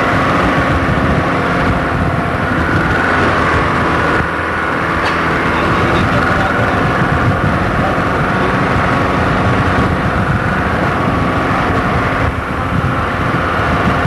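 A vehicle's engine running steadily under load as it climbs a rough, steep mountain forest track, heard from the moving vehicle.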